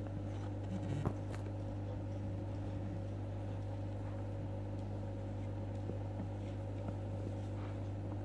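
A steady low electrical hum with a few fainter higher tones over it, and a couple of faint clicks about a second in.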